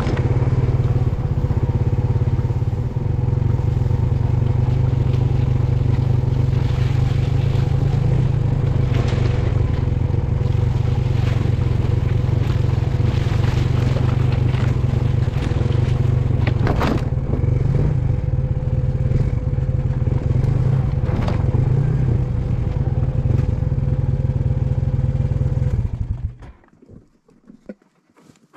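ATV engine running steadily while riding along a bush trail, then shutting off near the end.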